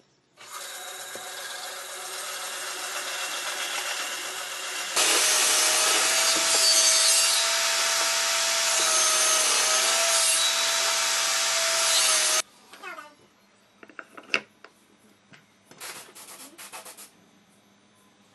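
A power tool working wood, with a steady whine. It runs loud for several seconds after a quieter rising start, then cuts off abruptly. A few light taps and clicks of wooden pieces follow.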